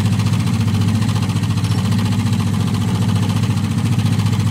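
Sailing yacht's inboard engine running steadily at idle, heard close up from inside the cabin as an even, rapidly pulsing low tone.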